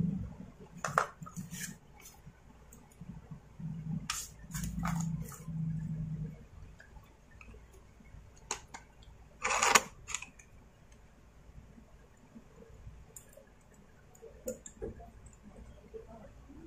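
Stihl MS250 chainsaw carburetor and its plastic and metal parts being handled and fitted by hand: scattered clicks and knocks, with a louder clatter about ten seconds in. A low hum comes and goes in the first six seconds.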